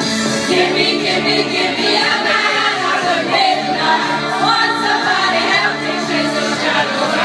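A group of women singing together into microphones over a karaoke backing track.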